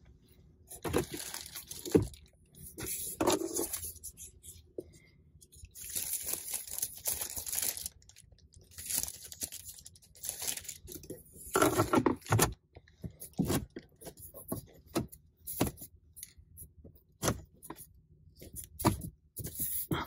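Irregular rustling and crinkling of protective plastic seat wrap, mixed with clicks and taps from a key fob being handled and hands on the interior trim.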